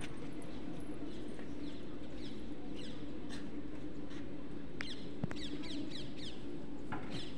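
Small birds chirping: quick, high chirps that slide downward, several a second, over a steady low hum. A single sharp click comes about five seconds in.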